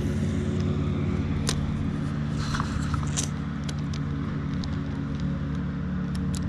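A steady low hum with a few light clicks and ticks from a spinning reel as its line and bail are handled.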